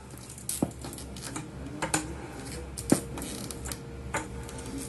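Sharp clicks and ticks at irregular intervals, roughly two a second, over a low steady hum.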